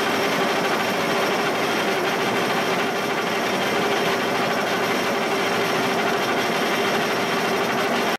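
Giddings & Lewis mill running, a steady mechanical hum with one constant tone in it. It stops abruptly at the very end.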